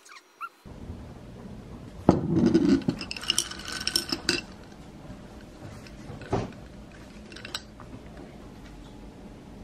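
Glass straw stirring ice cubes in a glass of iced coffee, clinking against the ice and the glass for about two seconds. Later come two single light taps.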